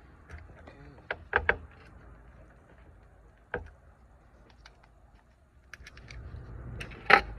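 Scattered sharp clicks and knocks of a pistol magazine being loaded by hand with cartridges, with the loudest knock near the end.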